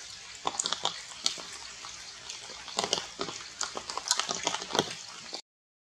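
Irregular sharp crackles and taps from wet forest foliage, a dozen or more, coming in clusters; they stop suddenly shortly before the end.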